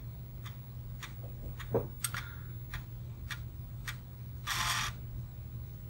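Pico half-height 5¼-inch Apple II floppy drive formatting a disk: its head clicks about twice a second as it steps from track to track, over a steady low hum. A short hiss comes about four and a half seconds in.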